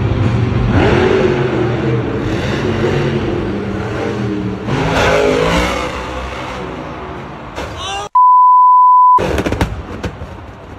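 Monster truck engine running and revving hard, its pitch rising and falling about five seconds in. About eight seconds in, a steady one-second bleep tone replaces all other sound and is the loudest thing here.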